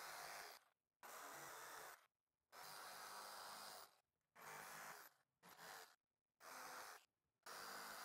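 Near silence: faint puffs of hiss, eight of them about a second apart, each cut off sharply into dead silence.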